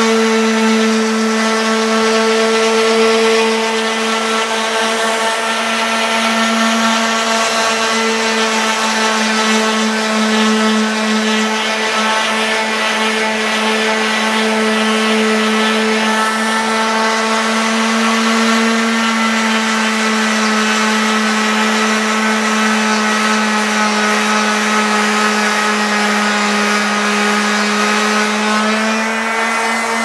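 Electric random orbital sander running steadily as it sands Azek cellular PVC trim with 120-grit paper: a constant motor hum whose pitch shifts only slightly.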